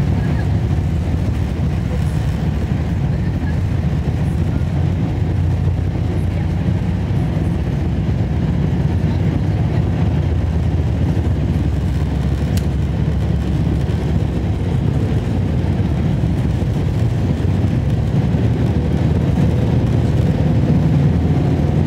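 Cabin noise inside a Boeing 747-8 airliner moving on the ground: a steady low rumble from the engines and the rolling gear, growing a little louder near the end.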